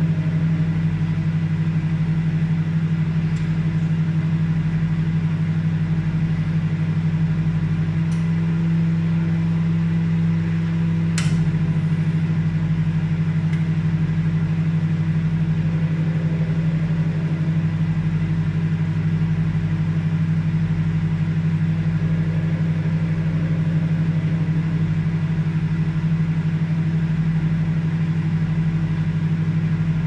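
Daewoo microwave oven running while heating: a steady low hum, with one sharp click about eleven seconds in.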